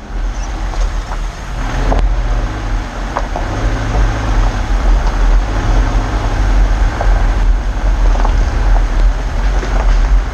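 Subaru Crosstrek driving slowly over a rough forest dirt track, heard from a GoPro mounted outside by the side mirror: a steady low rumble of engine and tyres, with a few sharp clicks from the track under the wheels.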